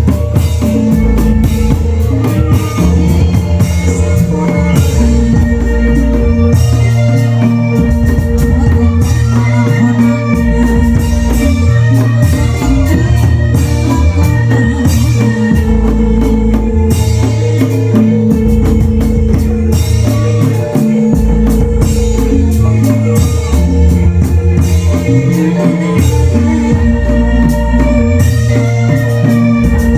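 Indramayu reog ensemble music: drums over a bass line that shifts note every second or so, with a long held tone above, played loud and continuously.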